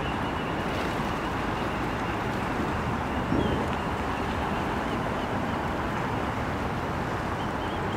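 Steady hum of distant road traffic, with a brief louder swell a little over three seconds in.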